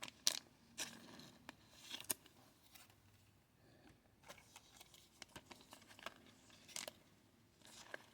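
Trading cards and foil pack wrappers being handled: a few short, faint rustles, crinkles and clicks, spread irregularly.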